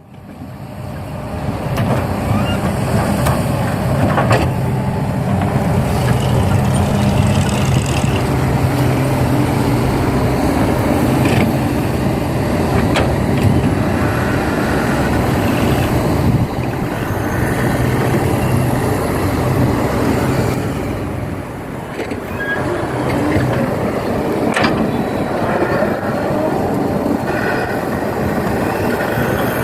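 Heavy diesel machinery running steadily, with an engine hum and a few sharp metallic knocks as an excavator loads soil into a dump truck.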